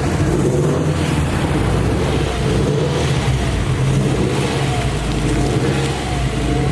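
The 2002 Subaru WRX's flat-four engine running at a steady, even speed under a steady rushing noise.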